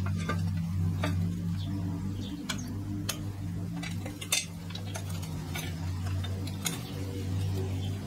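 Light, irregular clicks and knocks of a plastic skid plate being handled and pressed into place under a dirt bike's engine, over a steady low hum.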